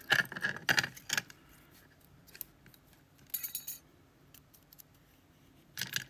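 Light metallic clinking and rattling of small metal pieces, such as a lock and its keys or tools being handled. A cluster of clicks and rattles comes in the first second or so, then scattered ticks, with brief rattles around the middle and again near the end.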